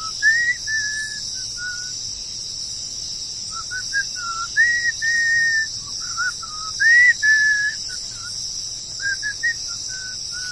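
A man whistling a cheerful tune with his lips, in phrases of short notes, upward slides and a few held notes, with pauses between phrases.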